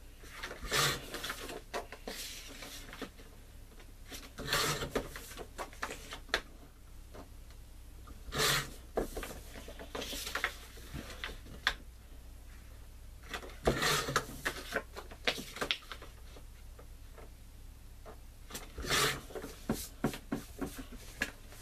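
Green cardstock being cut into pieces: a series of short cutting strokes a few seconds apart, about seven in all, with paper handling between them.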